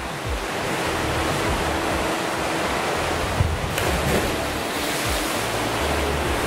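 Swimming-pool water splashing and rushing as a swimmer makes a racing dive and swims off, with one short sharp sound about three and a half seconds in. Background music plays underneath.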